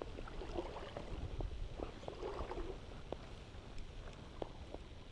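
Fly reel being wound in while playing a hooked fish, giving scattered clicks and short crackly bursts, over the low rush of the river and wind on the microphone.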